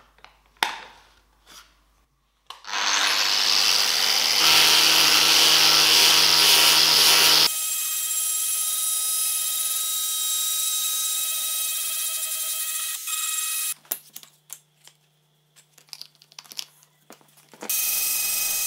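A few light clicks, then about two and a half seconds in an angle grinder with an abrasive disc starts grinding the steel of a knife blade forged from a drill bit. The grinding is loud and harsh for about five seconds, then goes on as a steadier whine. It drops out a few seconds before the end, with a few clicks in the gap, and starts again near the end.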